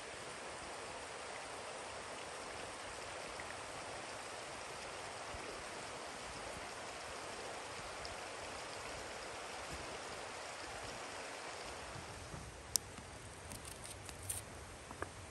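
A stream running with a steady, even rush of water. Near the end, a sharp click and a few light taps of a knife cutting on a wooden board.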